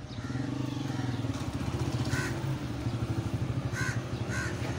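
A nearby engine running with a fast, even throb, getting louder over the first two seconds. Over it, a crow caws three short times, about two, four and four-and-a-half seconds in.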